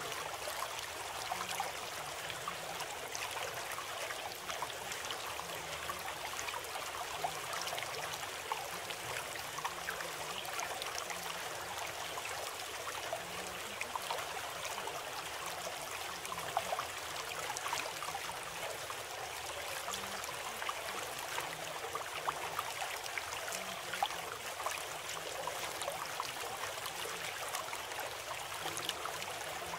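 Running water of a stream, trickling and splashing steadily, with many small splashes scattered throughout.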